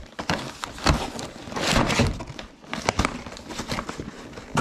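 Cardboard and clear plastic packaging of an action-figure box being handled and opened: rustling and crinkling with a series of sharp clicks and taps, the longest rustle just before two seconds in.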